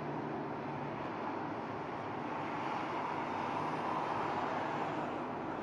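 Road traffic noise: a steady wash of vehicles driving along the road, swelling a little past the middle as a vehicle passes close.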